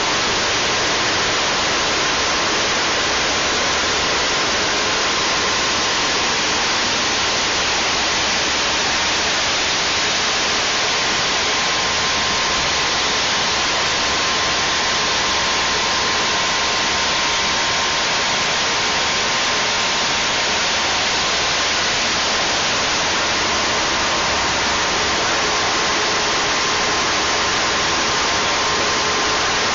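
Loud, steady static hiss with a faint steady tone running through it, switching on and off abruptly; no engine revving or voices can be made out in it.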